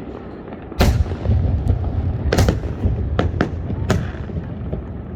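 Fireworks going off: a series of sharp bangs, about five loud ones and some fainter pops, each followed by a rolling low rumble.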